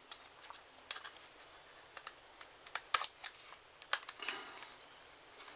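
Plastic blister package clicking and crackling as it is cut and pried open with a utility knife: irregular sharp clicks, bunched together about three seconds in.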